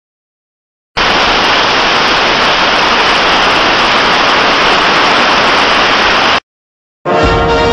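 Loud, even static hiss that starts abruptly about a second in and cuts off suddenly some five seconds later. Music starts just before the end.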